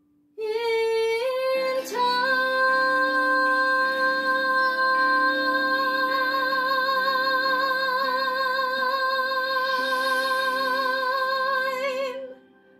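A woman singing one long held note with vibrato over a backing track; her voice slides up to the note over the first two seconds and holds it for about ten seconds before cutting off near the end.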